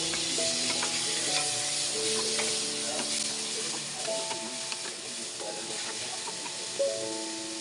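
Sizzling in a hot oiled wok as tomato wedges are dropped onto frying onion and garlic, then a spatula stirring and scraping the pan with small clicks. Background music with held notes plays underneath.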